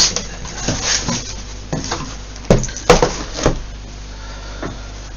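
Handling noise from a parcel being unboxed: several short knocks and clicks, the loudest two about two and a half and three seconds in, with faint rustling between them.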